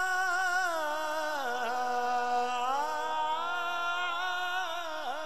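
A young man singing a Punjabi naat unaccompanied, drawing out one long ornamented note that sinks in pitch about halfway through and climbs back up, with a short dip near the end.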